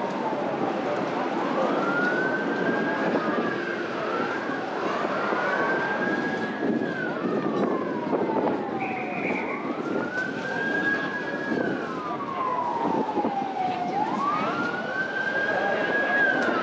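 Emergency vehicle siren in a slow wail, about four cycles. Each cycle climbs quickly, holds high for a moment, then slides slowly back down, over a steady bed of street noise.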